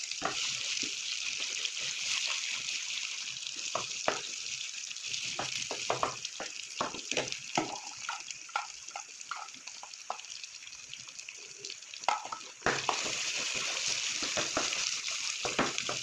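Saag greens sizzling in a hot pan, with a run of clicks and scrapes from a spatula stirring them in the middle stretch. The sizzle turns abruptly louder a little before the end.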